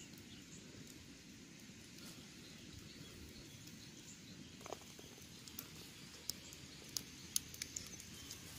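Faint outdoor ambience with a few scattered sharp clicks and taps, most of them in the second half, as squid on split-bamboo skewers are set over a charcoal cooking fire.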